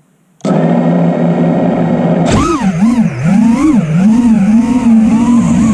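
FPV quadcopter's brushless motors (Xing 2306 1700kv) and propellers, heard from the onboard GoPro: they start suddenly about half a second in and spin at a steady armed-idle hum, then a little over two seconds in the throttle is punched and the motor whine swings rapidly up and down in pitch with the throttle.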